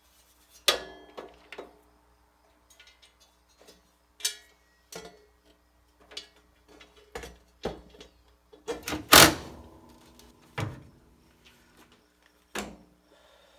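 Steel mounting plate knocking and clanking against the car's sheet-metal firewall as it is fitted into place: a string of sharp knocks, the loudest about nine seconds in, with a brief metallic ring after it.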